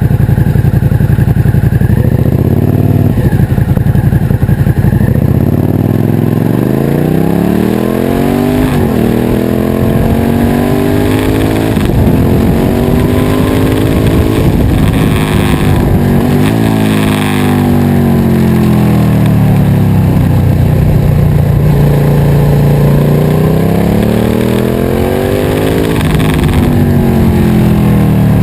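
Suzuki SV650 V-twin engine through a Scorpion aftermarket exhaust, running steadily and then pulling hard up through the gears. The pitch climbs and drops back sharply at each shift, falls away as the throttle eases, then climbs once more near the end.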